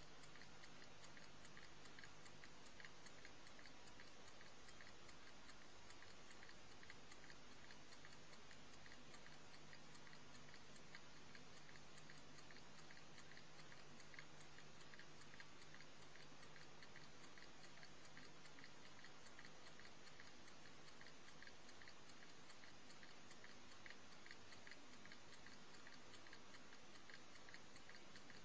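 Faint, regular ticking of an alarm-clock movement, under a steady hiss and low hum.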